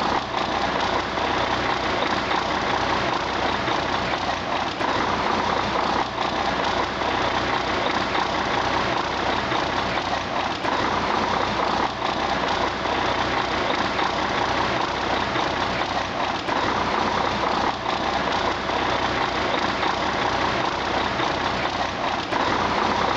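Cummins ISX EGR inline-six heavy-truck diesel engine running steadily on a stand, at an even pitch with no revving.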